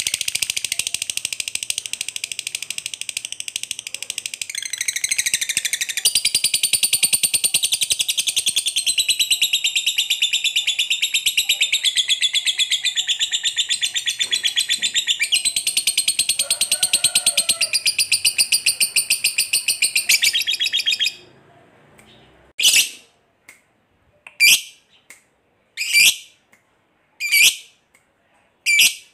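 Lovebird giving a long ngekek: a very fast, unbroken, high chattering trill that lasts about twenty seconds and shifts pitch several times. It then breaks off into single short, sharp chirps about every one and a half seconds.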